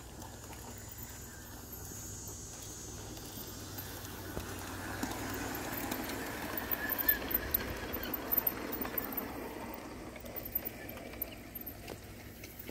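Large-scale garden-railway diesel locomotive and boxcars rolling past on brass track. The rumble of wheels and motor swells as the train comes close, peaks in the middle with a run of sharp clicks, and fades away.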